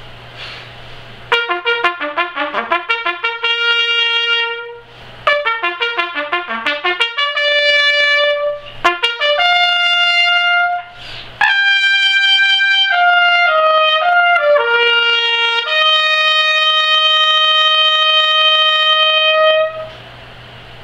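Solo trumpet: two passages of quick tongued runs, each ending on a held note, then a slower line of sustained notes stepping downward, finishing on one long held note of about four seconds before it stops.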